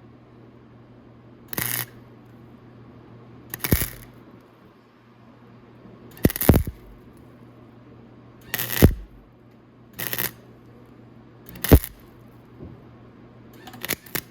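Welding arc crackling in short tack-weld bursts on a steel motorcycle muffler, seven brief bursts about every two seconds, over a steady low hum.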